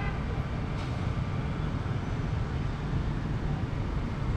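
Steady city street traffic: an even low rumble of engines and tyres from the road below.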